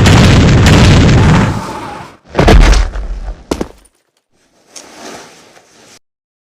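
Sound effects of an anime fight scene: a loud crashing blast that fades over about two seconds, then a heavy thud and a sharp crack, then silence.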